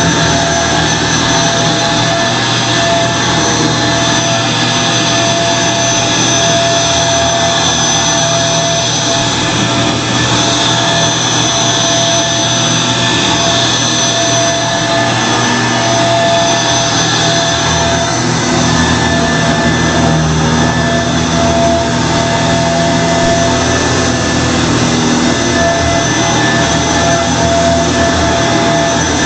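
2006 Kenmore Progressive Intelliclean canister vacuum cleaner running steadily while vacuuming: a loud rush of air with a steady motor whine.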